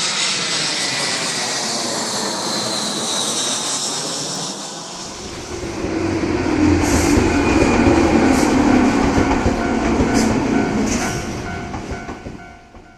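A train passing on rails: a low rumble of the wheels with several brief high squeals of wheels on the track, fading out near the end. It is preceded by a steady hiss with a falling whine.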